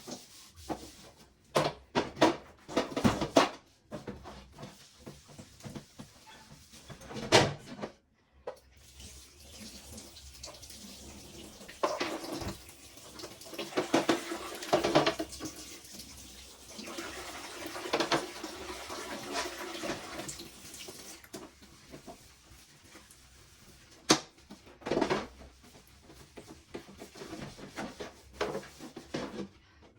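Water from a tap running and splashing in a sink as removable fridge parts are washed, with scattered knocks and clatters as the parts are handled. The knocks are loudest in the first few seconds, about seven seconds in, and again near the end.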